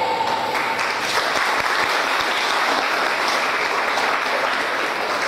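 Audience applauding. A held note of the dance music cuts off about half a second in.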